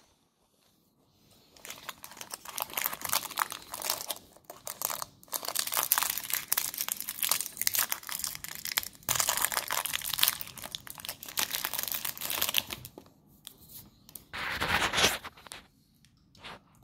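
Crinkly twist wrapper of a Ferrero Raffaello candy being untwisted and peeled off by hand: a long run of rapid crackling, starting about a second and a half in. A short, louder rustle follows near the end.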